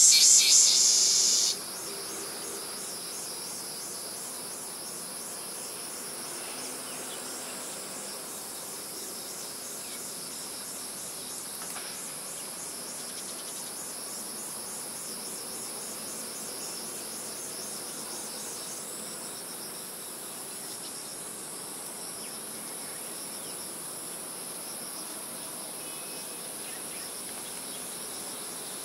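A louder stretch of music cuts off about a second and a half in, leaving a steady chorus of insects trilling high-pitched with a fine, even pulse.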